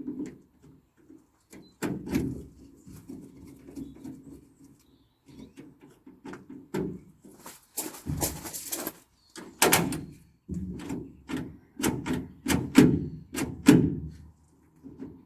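Clicks, knocks and metallic rattles of hand tools working on a van's rear door lock and catch mechanism, with a second or so of dense rattling noise about eight seconds in.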